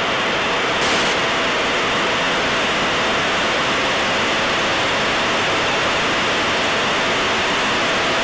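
Steady radio static hiss from the aircraft's radio audio feed: an open channel carrying no voice, cut off above the range of speech.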